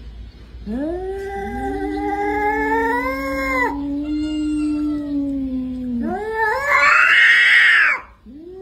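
Two cats yowling at each other in a standoff: long, drawn-out caterwauls that overlap and waver in pitch. About six seconds in they rise to a louder, harsher screech. These are the warning calls of cats squaring up to fight.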